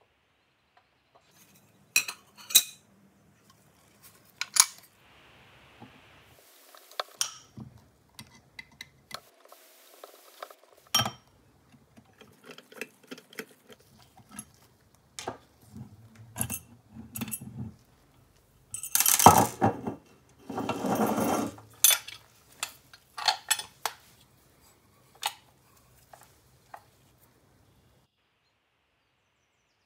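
Hands taking apart a mechanical coin bank: metal parts and a screwdriver clicking, clinking and knocking against the bank's metal base and the wooden tabletop, with two longer, louder bursts of handling noise about two-thirds of the way through.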